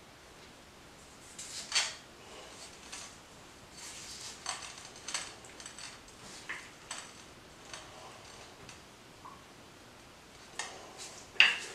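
Steel screwdriver tip scraping and clicking against ceramic floor tile edges in a grout joint, in short scattered strokes with the loudest near the end.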